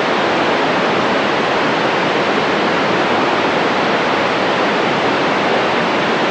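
Steady, loud radio static hiss from a NOAA Weather Radio receiver, with no broadcast audio coming through.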